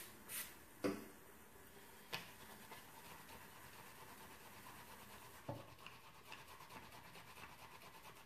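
Two short hissing squirts from a small spray bottle at the start, then a sharp knock about a second in. A makeup brush is then scrubbed on a silicone brush-cleaning mat in the sink: its bristles make a faint, quick, rhythmic scratching, with a few light knocks.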